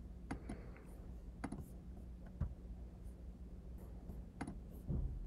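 Several faint, scattered clicks from a MacBook Pro's trackpad and keys as menus and dialog buttons are clicked through, over a low steady hum.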